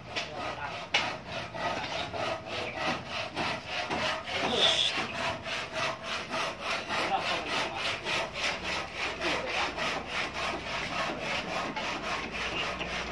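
Hand saw cutting a timber plank: a steady back-and-forth rhythm of saw strokes, about four a second.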